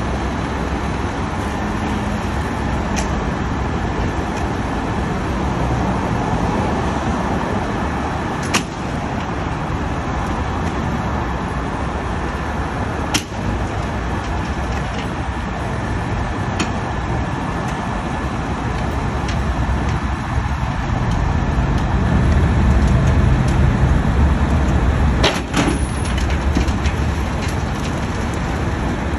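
Heavy rotator wrecker's diesel engine running steadily while its winch lines lift an overturned, loaded concrete mixer upright. The rumble swells for a few seconds about three-quarters of the way through, and a few sharp knocks stand out, two of them close together near the end.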